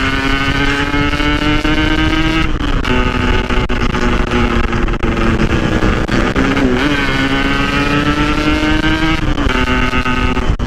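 Yamaha RX-King's 135cc two-stroke single-cylinder engine running under way, its pitch rising steadily as it pulls, then dropping at a gear change about two and a half seconds in. The engine eases off and picks up again around the middle and climbs again, dropping at another shift near the end.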